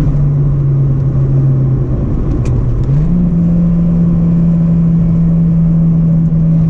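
2005 Acura RSX Base's four-cylinder engine heard from inside the cabin, pulling hard through its automatic gearbox. The engine note drops right at the start with a shift, holds lower, then steps back up about three seconds in with a downshift, which is kind of slow, and holds steady at the higher revs, over steady road noise.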